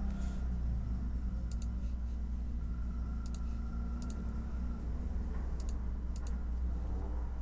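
Computer keyboard keystrokes, a few sharp clicks spaced a second or so apart, over a steady low background hum.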